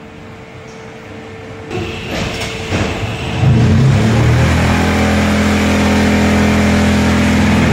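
Concrete-block production-line machinery running. Clattering builds about two seconds in, then a loud steady low machine hum starts abruptly after about three and a half seconds and holds.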